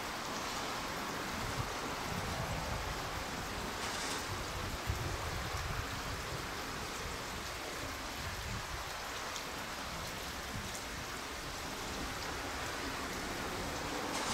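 Steady outdoor background noise: an even hiss with an unsteady low rumble and no distinct event.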